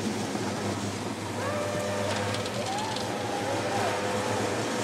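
Distant voices shouting in long, drawn-out calls, starting about a second and a half in, over a steady low hum and outdoor noise.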